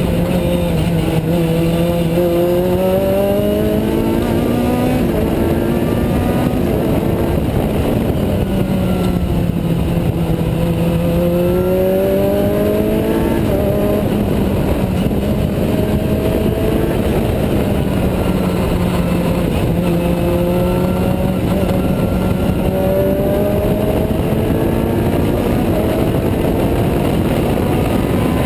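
Juno SSE's Honda Type R four-cylinder engine heard from inside the open cockpit at racing speed. Its note climbs and drops several times as the car accelerates and slows through the lap, over a constant rush of wind and road noise.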